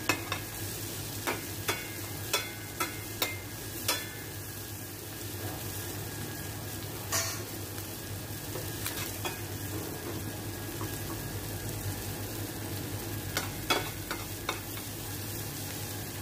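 Sliced onions and garlic sizzling in butter in a stainless steel frying pan, while a spatula scrapes and knocks against the pan, several times in the first few seconds and again near the end.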